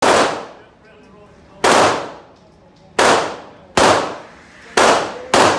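Six handgun shots fired at uneven intervals of about one to one and a half seconds, each a sharp crack followed by a short echoing tail in the enclosed range.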